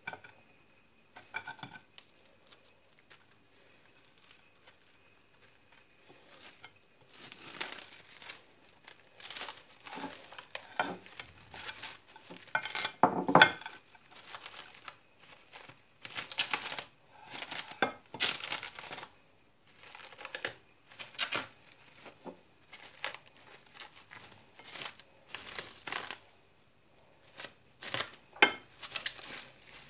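Thin clear plastic wrap crinkling and rustling in many short bursts as it is folded around a sandwich: a few soft clicks at first, then busy crinkling from several seconds in, loudest about halfway through.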